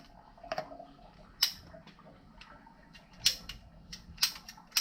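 About ten irregular sharp clicks and light knocks as plumbing pipe, fittings and tools are handled.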